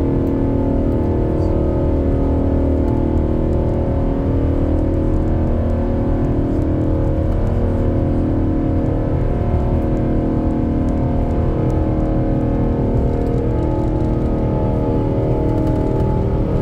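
Airbus A350-900's Rolls-Royce Trent XWB jet engines running at takeoff power: a steady deep rumble with several held tones that waver slightly in pitch.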